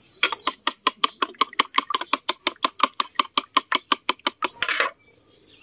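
A metal spoon beating two raw eggs in a bowl: quick, even clicks of the spoon against the bowl, about seven or eight a second, stopping near the end.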